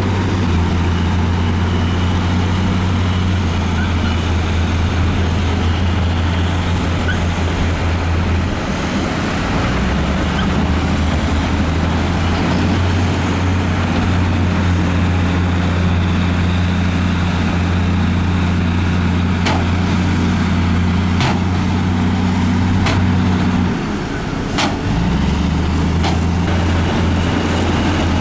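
Heavy diesel engines of crawler bulldozers and a tipping dump truck running steadily with a deep hum, the tone shifting twice as the machines change. In the later part, five sharp knocks come about a second and a half apart.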